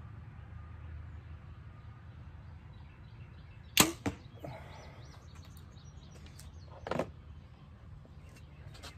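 Compound bow shot: a loud sharp snap of string and limbs as the arrow is released, about four seconds in, with a second sharp knock a fraction of a second later. Another weaker knock comes about three seconds after.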